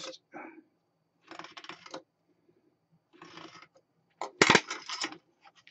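Craft knife blade scoring a brick-embossed modelling sheet along a steel ruler, cutting the sheet so that it can be snapped along the line. Two short scraping strokes come about a second and a half apart, then a louder, sharper scrape with clicks about four and a half seconds in.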